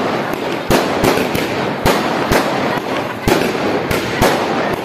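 Many firework rockets bursting overhead: a rapid, uneven series of sharp bangs, about two or three a second, over a steady crackle.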